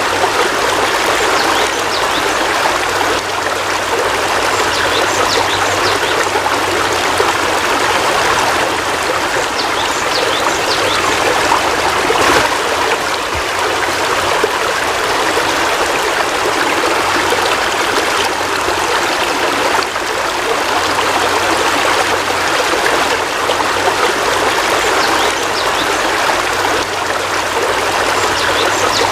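Heavy rain falling steadily, a dense even hiss with scattered individual drops standing out.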